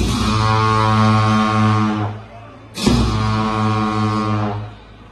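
Tibetan monastic ritual music: long horns sounding a low, steady, pulsing drone, with a cymbal crash and drum beat at the start and again about three seconds in. Each crash rings and fades before the next.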